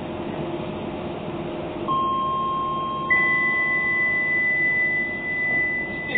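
Electronic chime: a steady tone starts about two seconds in and a second, higher tone joins about a second later and is held to the end, over the steady hum of a stopped Docklands Light Railway train.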